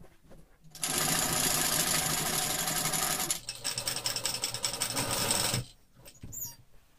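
Industrial sewing machine stitching a quarter-inch seam from the edge on a denim pocket: it runs fast, changes to a more evenly pulsed run with the separate stitches heard, then stops. A brief softer sound follows.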